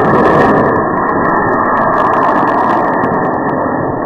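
Strong wind buffeting the microphone: a loud, steady, rumbling rush with scattered crackles, slightly easing over the few seconds.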